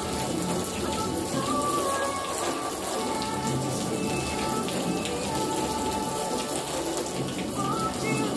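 Water from a hose spraying and running over a wax-coated car panel, a steady even patter and hiss of water on paint, as the panel is rinsed to test the wax's water repellency.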